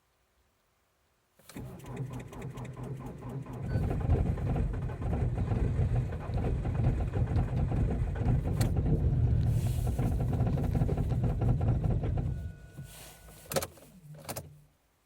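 Ford Focus 2.0 TDCi four-cylinder diesel cranked on the starter from a deep-cold soak, a hard start. It turns over with a rapid, even pulse, grows louder about two seconds in, holds for some eight seconds, then falls away and stops near the end without staying running.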